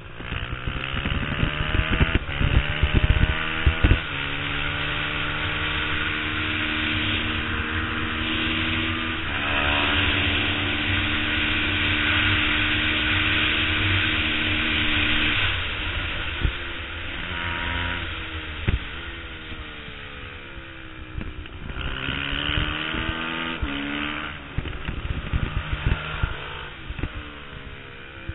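Onboard sound of a twin-cylinder race motorcycle at speed, with wind buffeting the camera. The engine climbs to high revs and holds there, with a gear change about nine seconds in. It drops away through downshifts for a corner a little past the middle, then pulls up again with another shift and eases off near the end.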